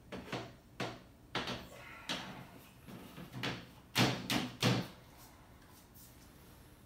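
A plastic bed slat being fitted onto a metal platform bed frame: a run of knocks and clatters as it is pushed down under the frame's hooks, with the loudest three knocks in quick succession about four seconds in.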